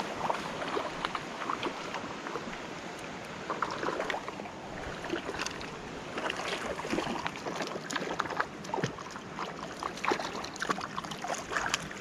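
Shallow river water running over rocks: a steady wash with many small splashes and gurgles throughout.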